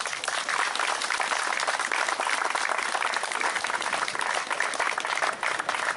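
An audience applauding, steady clapping from many hands.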